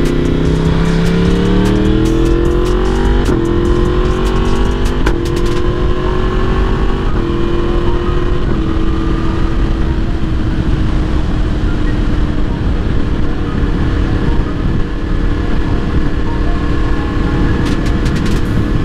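Yamaha MT-10's crossplane inline-four through an Akrapovic exhaust, accelerating through the gears. The pitch climbs and then drops with four quick upshifts in the first nine seconds, after which the engine holds a steady cruise over the rush of wind noise.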